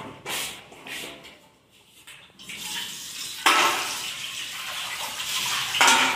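Water running from a tap, turned on suddenly about three and a half seconds in and running steadily; before that, a few faint kitchen knocks.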